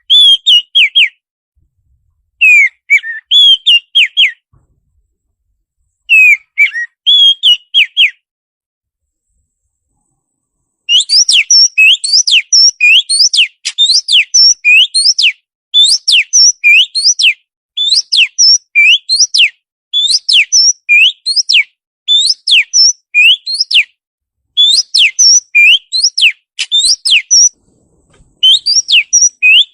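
Birdsong 'master' recording of the kind played to train kept songbirds: three short chirping phrases separated by silence, then from about eleven seconds on a long run of quick, repeated whistled notes that sweep up and down.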